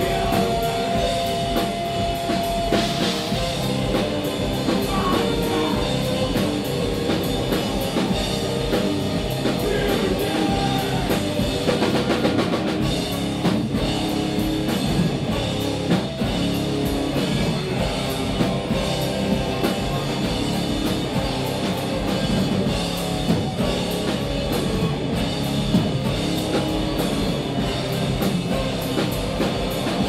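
A live rock band playing loud, with a drum kit, bass guitar and guitars.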